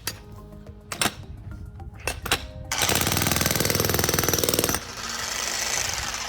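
Vevor 2200-watt electric jackhammer with a spade bit digging into hard ground with roots: a few separate knocks, then a burst of rapid, even hammering of about two seconds, easing off to a quieter steady sound near the end.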